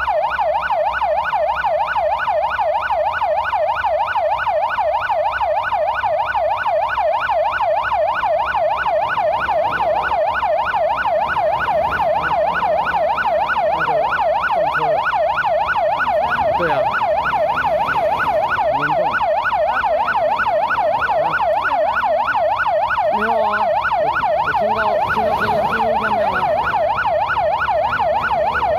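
Police car siren on a fast yelp, its pitch rising and falling several times a second without a break.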